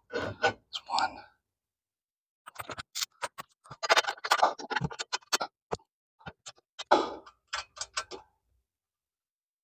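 A run of small metallic clicks and knocks, thickest in the middle, as a steel cargo-basket mounting bracket is set in place by hand and a bolt with a washer is fitted into it.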